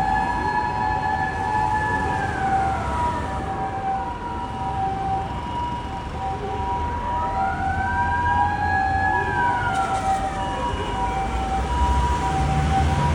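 Japanese ambulance two-tone "pee-paw" siren alternating high and low, overlapping a police car's wailing siren. The wail holds high, falls away about two seconds in, then rises again about seven seconds in and falls once more. Low traffic rumble rises near the end.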